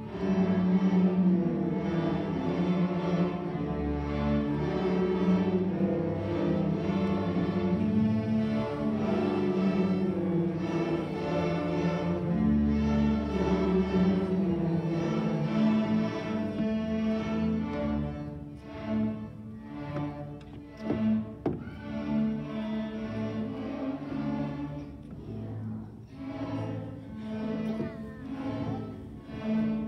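A student string orchestra of violins and cellos playing a piece together, first in held, sustained notes, then in shorter, separated notes and a little quieter from a little over halfway through.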